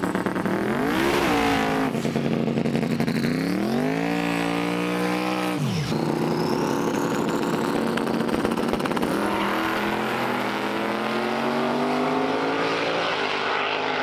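Twin-turbo Mustang drag car revving hard at the starting line in rising and falling blips, then launching and pulling away with its engine note climbing slowly and steadily. The slow climb fits the driver's account that it left on too much boost and RPM, spun the tire and took a long time to recover.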